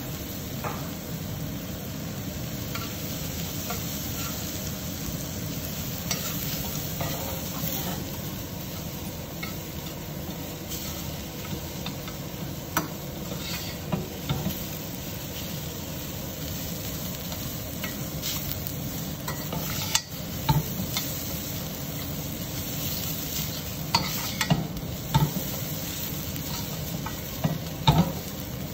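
Cauliflower pieces with flour and panko crumb sizzling in oil and butter in a stainless steel frying pan, stirred with a metal spoon. The spoon scrapes the pan and knocks sharply against it several times, mostly in the second half.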